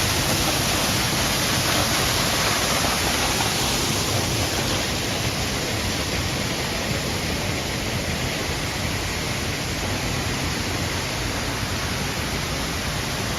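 Waterfall: a steady rush of falling water, easing a little from about five seconds in.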